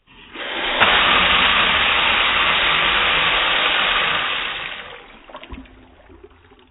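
Firework rocket going off with a loud, steady rushing hiss that fades out after about four and a half seconds, followed by a few faint scattered crackles and pops.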